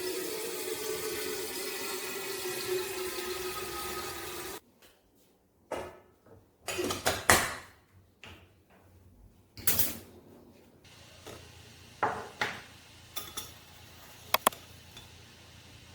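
Water running steadily, like a tap or a vessel filling, for about four and a half seconds before cutting off abruptly; then scattered knocks and clinks of dishes and kitchenware.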